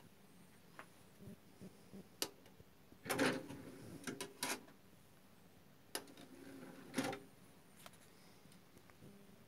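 NAD C 521BEE CD player's disc tray being worked by hand: a short mechanical whir and clatter about three seconds in, a few clicks as a CD is set in the tray, and another brief whir and clunk about seven seconds in as the tray closes. Scattered light clicks of handling around them.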